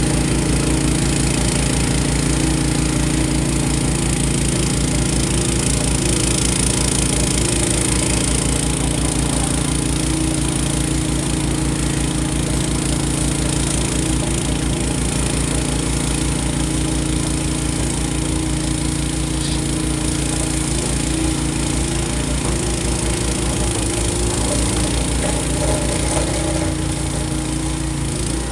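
Honda HSS1332 two-stage snowblower's single-cylinder engine running steadily under load as it clears snow.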